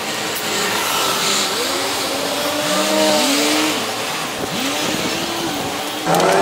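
Buses and other road vehicles moving through the bus interchange, with engine notes rising in pitch as they pull away and accelerate, a couple of times, over steady traffic noise.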